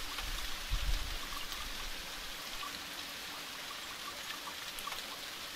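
Steady rain falling on leaves and flowers: an even soft hiss dotted with tiny taps of individual drops. There is a short low thud just under a second in.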